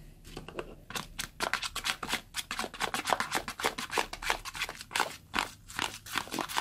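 Homemade slime of peel-off lipstick and shaving foam, just activated with boroglycerin, being stirred with a small metal spoon in a plastic cup: a quick run of wet squelches and clicks, starting within the first second.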